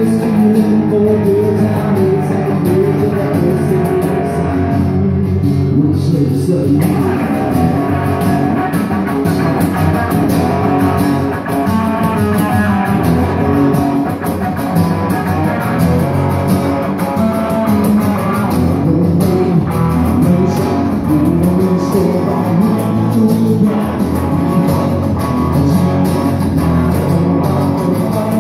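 Live southern rock band playing: a strummed acoustic guitar and a black single-cut electric guitar, with a man singing lead.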